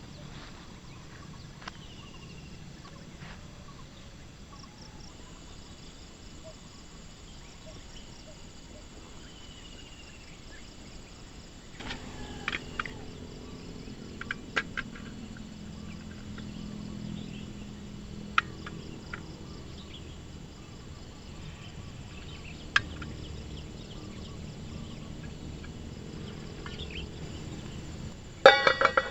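Outdoor ambience with a few faint bird calls, scattered sharp clicks and knocks in the middle, and a loud cluster of sharp knocks just before the end.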